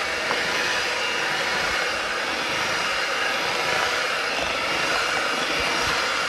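Electric hand mixer running at a steady speed, its beaters whirring through muffin batter in a bowl.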